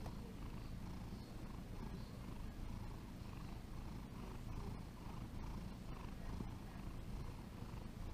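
Domestic cat purring steadily while its head and neck are rubbed.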